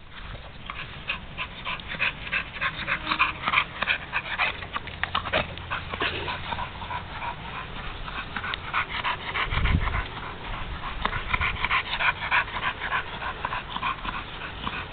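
Pit bull panting hard and fast, several quick breaths a second, as a hot, tired dog does after long exertion. A low thud about ten seconds in.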